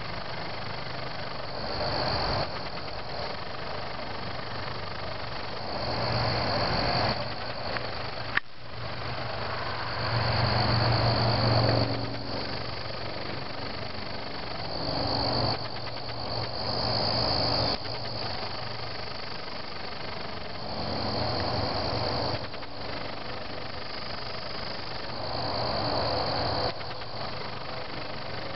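Crickets chirping steadily in the background, with a louder low rushing noise that swells and fades every few seconds and a single sharp click about eight seconds in.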